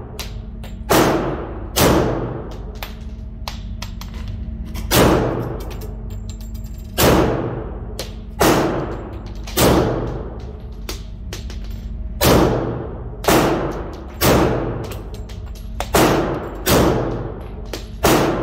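Semi-automatic pistol fired repeatedly in an indoor range, about a dozen shots at uneven intervals of one to two seconds, each with a long echoing tail off the range walls.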